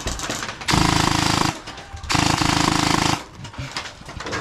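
Electric gel blaster firing on full auto in two bursts of about a second each, a rapid mechanical rattle.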